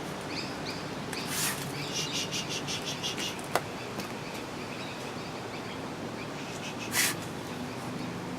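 Small birds chirping, with a quick run of high calls about two to three seconds in. Two short hissy bursts come through, one about a second and a half in and one near the end.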